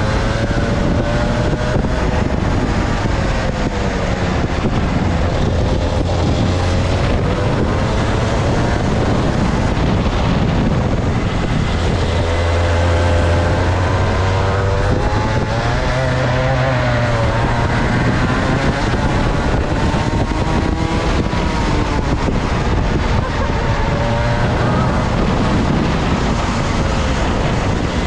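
Two-stroke go-kart engine running hard, its pitch rising and falling over and over as the kart speeds up on the straights and lifts off for corners.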